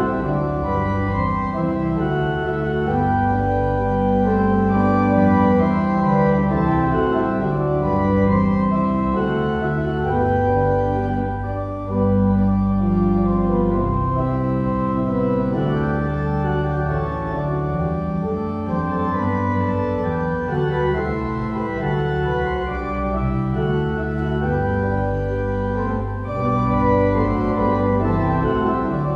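Organ music playing slow, held chords that change every second or two.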